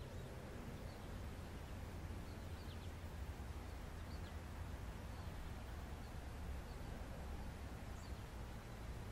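Outdoor lakeside ambience: a steady low rumble on the microphone, with faint short bird chirps scattered throughout.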